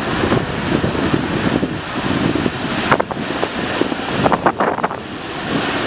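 Wind buffeting the microphone in a steady rumble over the wash of low surf breaking on the beach, with a few short clicks about halfway through.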